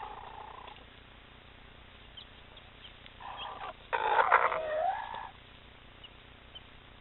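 Hens giving drawn-out, growling 'rrrr' calls, the suspicious warning sound adult chickens make at an intruder near chicks. One call trails off about a second in, and a loud harsh one comes about four seconds in, its pitch dipping and then rising. Faint chick peeps come in between.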